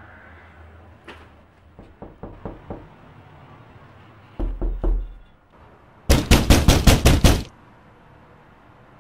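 A few light taps and a dull thump, then a loud, rapid run of about nine knocks in a second and a half, like fast banging on a door.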